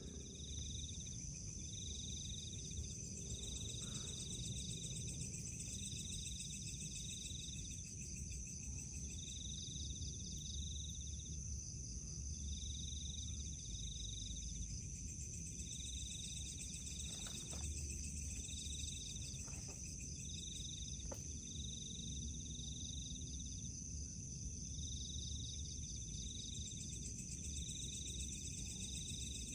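Night insects calling steadily, a crickets-and-katydids chorus: a high continuous trill with a lower chirp repeated in short pulses of about half a second to a second, over a low rumble, with a few faint knocks in the middle.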